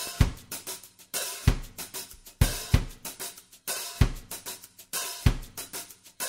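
Background music reduced to a drum kit: kick drum, snare and cymbal or hi-hat hits playing a steady beat.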